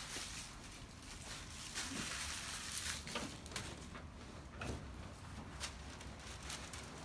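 Quiet room with a faint hum and a scatter of soft, separate rustles and taps, the sounds of people moving and handling things.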